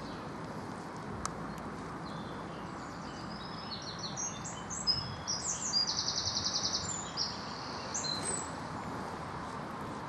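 A songbird singing one phrase of quick, high notes, with a fast trill about halfway through, over a steady background hiss.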